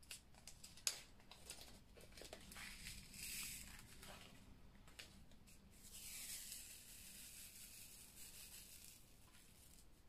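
Faint rattle and rustle of small resin diamond-painting drills in a plastic drill tray as they are poured in and shaken to settle into the tray's grooves, with a few light clicks in the first second or so.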